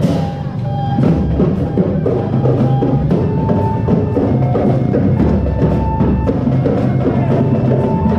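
Loud percussion-heavy music: drums beating a steady rhythm, with a few short held tones over it.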